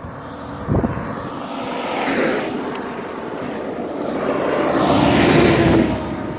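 Road traffic passing close by: two vehicles swell up and fade away, the second louder and with a steady engine hum in it, after a low thump about a second in.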